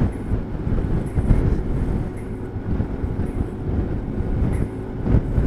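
Strong gusty typhoon wind buffeting the microphone while riding: a loud, uneven low noise that keeps surging.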